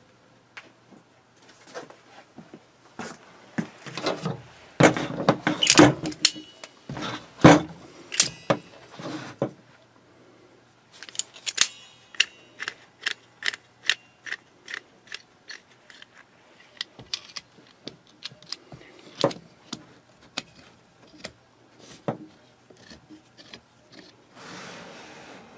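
Metal clicks, clanks and knocks from handling a pair of DeWalt 12-inch C-clamp locking pliers while trying them on objects. There is a louder cluster of knocks with a brief metallic ring about six seconds in, and an even run of clicks about twice a second from about eleven to sixteen seconds in.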